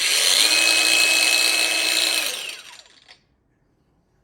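Ozito PXC 18V brushless angle grinder running at full speed with a steady high whine. It is switched off a little over two seconds in, and its disc spins down with a falling whine, stopping within about a second.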